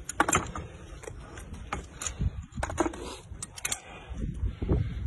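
Irregular sharp metallic clicks and knocks, some in quick pairs, the loudest near the start, as the battered metal fittings of a wrecked armoured vehicle are knocked and handled. A low wind rumble on the microphone lies under them.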